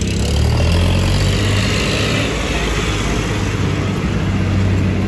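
Tractor engine running steadily at low revs, its pitch rising a little about half a second in.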